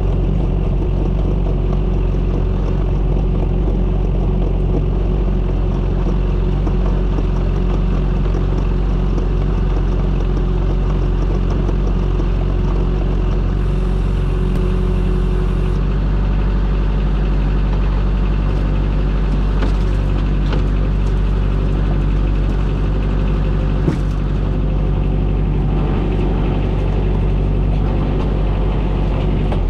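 Fishing boat's engine running steadily under way, with one short knock about 24 seconds in.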